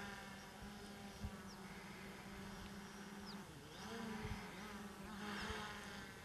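Flying insects buzzing close by, a steady drone whose pitch dips and rises about halfway through as one flies past, with a few faint short high chirps.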